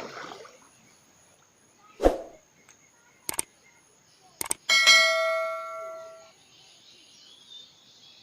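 A dull thump, two sharp clicks, then a single metallic ring, like a struck bell, that fades out over about a second and a half.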